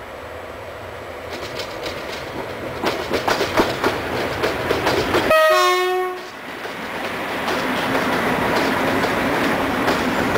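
Train approaching, its wheels clicking over rail joints, with a short horn blast about halfway through, then the train rolling past with a steady rumble.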